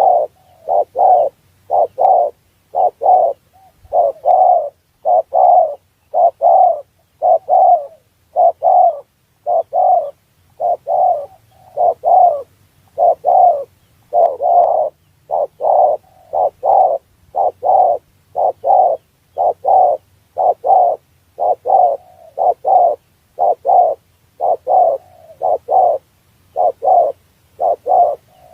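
Spotted dove (tekukur) cooing: a long, unbroken run of short, low coos, roughly three every two seconds.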